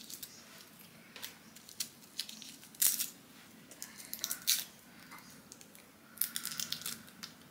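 Knife cutting garlic cloves on a chopping board: faint, irregular crunches and light taps, bunched together around the middle and again near the end.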